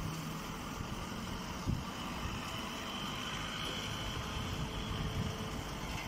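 Vertical hay baler's power unit running with a steady mechanical hum, a dull knock about two seconds in.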